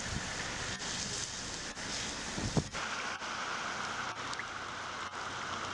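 Heavy rain falling on standing floodwater, a steady hiss. A short loud thump comes about two and a half seconds in, and just after it the sound changes to a brighter, thinner rushing of water, fitting vehicles wading through the flooded street.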